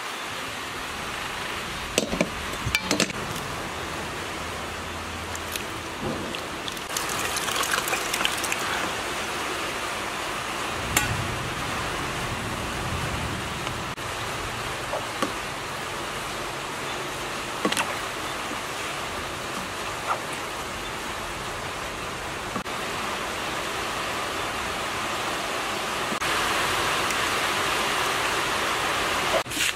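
Soaked grated coconut being squished and squeezed by hand, with coconut milk trickling and splashing through a plastic strainer into a steel pot, and a few sharp clicks and knocks. The trickling is loudest near the end.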